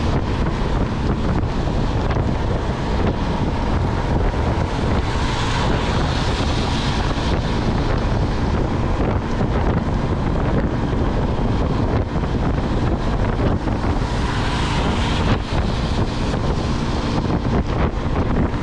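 Steady wind rush buffeting the microphone of a small motorcycle riding at highway speed in the rain, mixed with the hiss of tyres on a wet road. The noise swells briefly twice, around five and fifteen seconds in.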